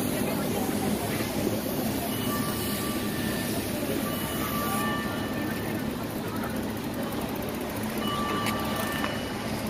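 Fire hose jet spraying high-pressure water onto the seawall rocks: a steady rushing hiss. A faint high whistling tone comes and goes a couple of times.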